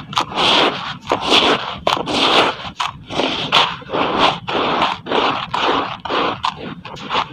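Charcoal concrete being crumbled in water: an irregular run of gritty crunches and scrapes, about two a second, with a few sharp cracks.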